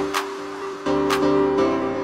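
Background music: held chords that change about once a second, each change marked by a sharp percussive beat.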